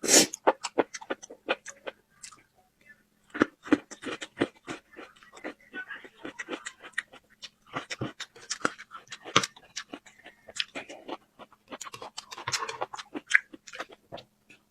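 Close-up eating sounds: chewing and crunching with many sharp, clicky mouth noises and heavy breathing, opening with a loud burst. Under it runs a faint steady hum.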